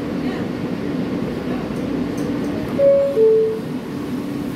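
New York City subway car's door-closing chime: two descending tones about three seconds in, over the steady hum of the stopped train.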